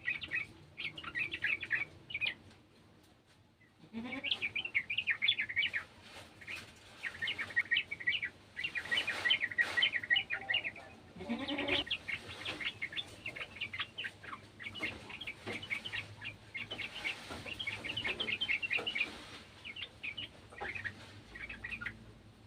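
Yellow-vented bulbuls calling in bursts of rapid, chattering notes, with a few short, lower rising calls among them.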